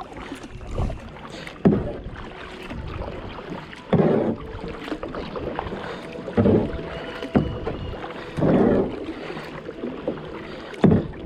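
Kayak paddle strokes in river water: five splashing dips of the blade, about two seconds apart, with water trickling and lapping between strokes.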